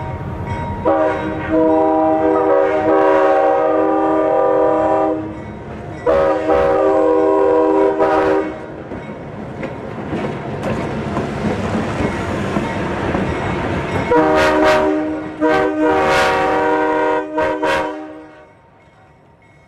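Multi-note train air horn sounding a chord: a long blast of about four seconds, a shorter one, then after a few seconds of rumbling noise a string of shorter blasts that stop near the end.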